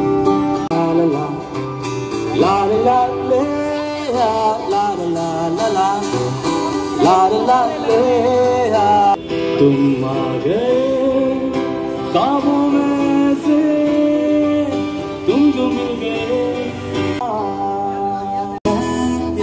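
A voice singing a melody over guitar accompaniment, with a brief sudden dropout shortly before the end.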